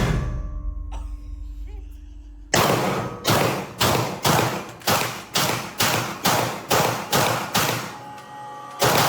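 A loud bang that rings away, then an evenly paced run of about a dozen sharp bangs, roughly two a second, and another loud bang near the end.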